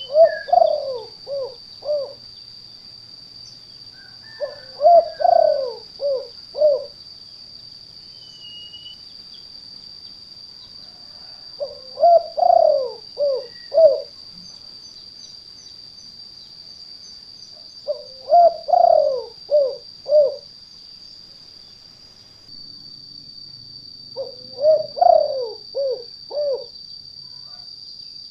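Spotted dove (tekukur) singing its 'kuk 2' song: five cooing phrases spaced several seconds apart, each a longer rolling coo followed by a few short notes. A steady faint high-pitched whine runs underneath.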